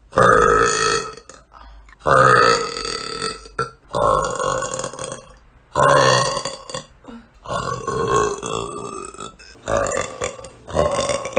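A young woman's deep burps: about seven long belches one after another, each lasting a second or more, with short pauses between them.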